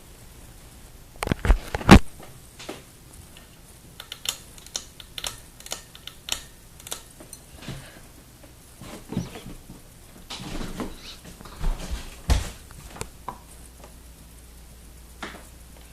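Ceiling fan running in reverse with a faint steady low hum, overlaid by irregular clicks and taps and a few louder thumps, the strongest about 2 s in and again about 12 s in.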